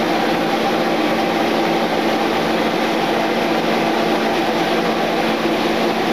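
Kitchen range hood fan running over the stove: a steady whir with a low hum that does not change.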